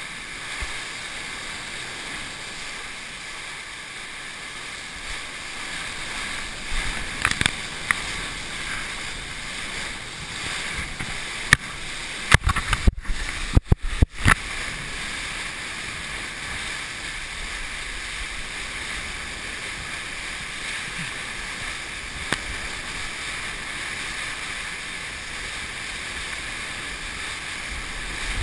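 Steady rush of whitewater from a river's standing wave churning around a surfboard, heard through a GoPro's waterproof housing. Short knocks and splashes hit the housing about seven seconds in, and again in a loud cluster about twelve to fourteen seconds in.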